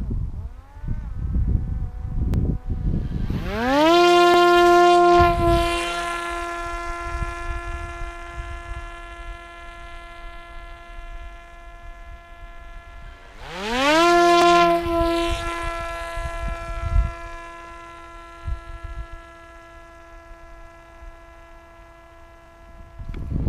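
Parrot Disco fixed-wing drone's electric pusher motor and propeller spinning up with a rising whine at take-off, then holding a steady pitch that slowly fades. The same spin-up happens twice, about 4 seconds in and again about 14 seconds in, with gusts of low rumble underneath.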